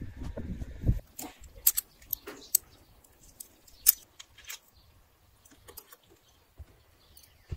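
Low handling rumble for about the first second. Then a run of sharp metallic clicks and clinks from a small steel butt hinge being handled and folded, loudest about four seconds in.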